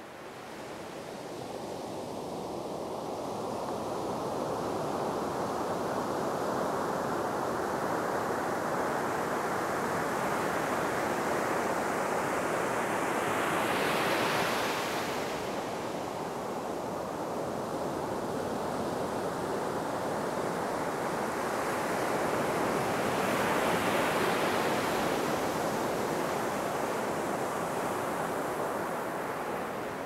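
Ocean surf breaking on the shore: a continuous wash of waves that fades in over the first few seconds, swelling louder as a bigger wave breaks around the middle and again later on.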